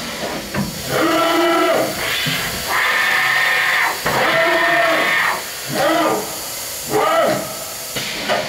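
Sharp SV-2412 CNC vertical machining center's servo motors whining through a series of rapid moves of the spindle head and carousel tool changer, the pitch gliding up and down as each move speeds up and slows. A longer, steadier whine comes about three seconds in.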